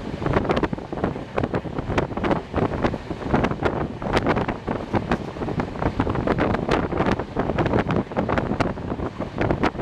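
Express train running, heard from on board with heavy wind on the microphone. Wheels on the track give rapid, irregular clicks and knocks over a steady rushing noise.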